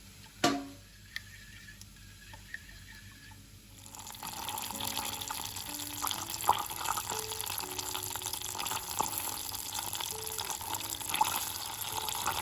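Tap water running into a sink, turned on about four seconds in and running steadily, after a sharp click near the start. Soft acoustic guitar music plays underneath.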